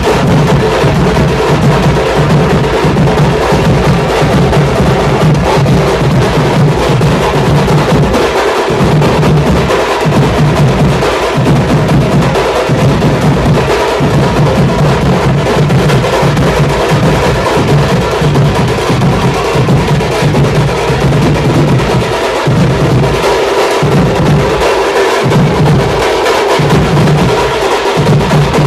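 Street drum troupe playing a fast, loud, continuous beat on stick-played side drums and large bass drums. The deep bass beats drop out briefly now and then, several times in the second half.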